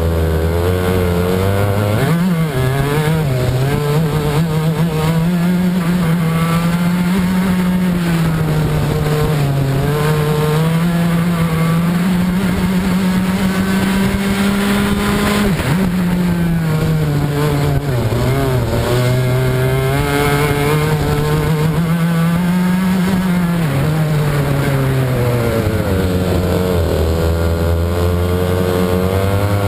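Club 100 racing kart's engine heard close up from onboard at race pace, its pitch climbing along each straight and dropping sharply under braking for the corners, several times over.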